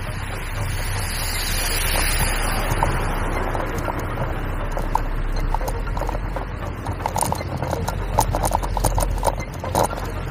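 Riding noise from a bicycle on the move: wind buffeting the handlebar camera's microphone and tyres rolling on asphalt. About halfway through come many short irregular clicks and rattles from the bike.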